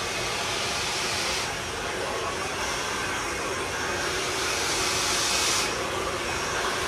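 Handheld blow dryer running steadily, a continuous rush of air; its hiss gets slightly brighter and duller a couple of times.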